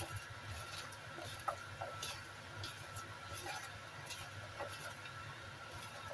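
Faint, irregular soft squishes and small clicks of salted bitter melon pieces being squeezed and kneaded by hand in a ceramic bowl, working out the bitter juice.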